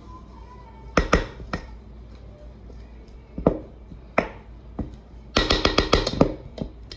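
Knocks and clinks of metal against a stainless steel mixing bowl as the hand mixer's wire beaters are cleaned off with a spatula over it, with the bowl ringing. A few single knocks come first, then a quick rattling run of taps near the end, the loudest part. The mixer motor is not running.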